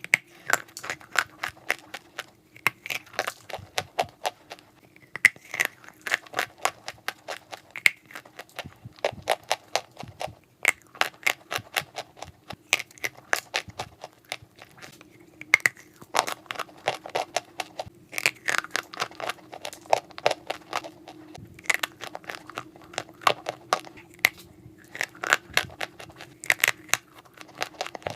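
Close, dense crunching of dry chalk clay: many sharp, irregular crackles in quick clusters, over a faint steady hum.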